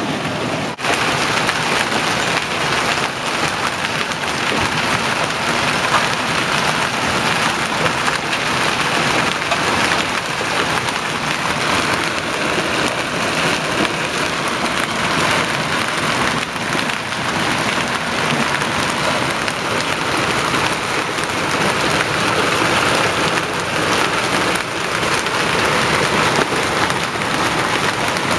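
Hailstones and rain pelting a paved street: a loud, steady, dense patter of countless small hits.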